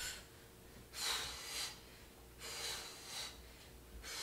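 A woman breathing hard from exertion while doing scissor kicks, with noisy breaths about every second and a half.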